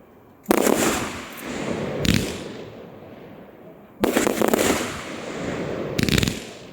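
Fireworks display: four loud aerial shell bursts about two seconds apart, each dying away over a second or so.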